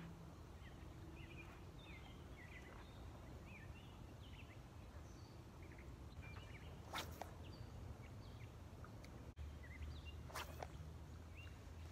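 Quiet outdoor ambience with small birds chirping and calling on and off throughout. Two brief swishes, one around seven seconds in and one about ten seconds in.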